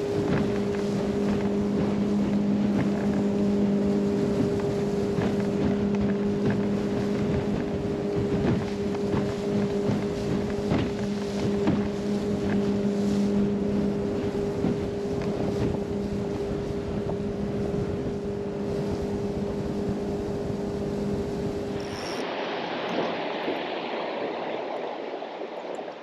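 Jet boat outboard motor running at a steady drone as the aluminum boat runs up river rapids, with rushing water and wind noise over it. About 22 seconds in the motor sound cuts off abruptly, leaving only a softer hiss.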